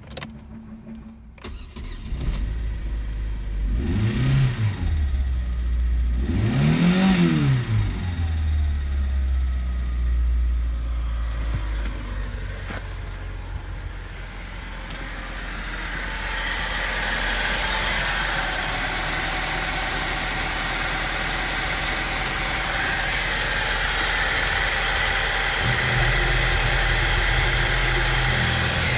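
Opel Astra F's 1.4-litre C14NZ four-cylinder petrol engine starting, revved up and back down twice, then settling to a steady idle. From about halfway it is heard close up from the open engine bay, with more mechanical clatter and hiss over the idle.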